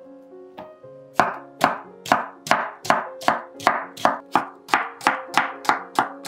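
Wide cleaver-style knife chopping small cucumbers on a bamboo cutting board. A run of sharp chops starts about a second in, two to three a second and getting quicker, over soft background music.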